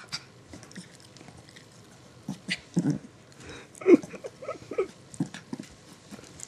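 Small dog making a run of short growls and grumbles while play-biting a hand, starting about two seconds in, the loudest near the four-second mark.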